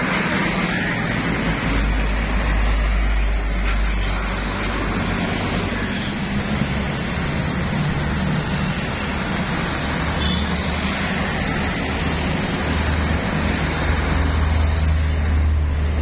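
Highway traffic passing: container trucks, cars and motorcycles, with a steady road noise. A heavy low engine rumble swells as big trucks go by about two seconds in, and again, loudest, near the end as container tractor units pass close.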